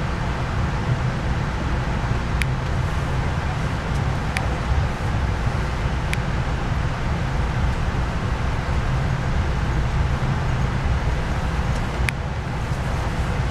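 Steady rumble of a moving passenger train heard from inside the coach, with a few brief sharp clicks.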